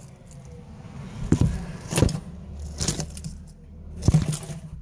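Handling noise right on a phone's microphone: about four short knocks and scrapes roughly a second apart over a low rumble, as a struggling lizard bites at the phone.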